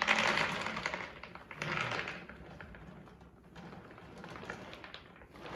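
.50 calibre lead balls rattling and clattering out of a tipped ball mill jar along with the milled black powder. There are louder bursts of clatter at the start and again about two seconds in, then a lighter, scattered rattle.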